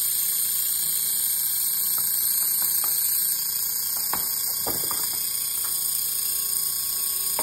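Homemade bandsaw blade cleaner running with a steady high hiss, with a few light clicks and ticks about halfway through as the blade is handled.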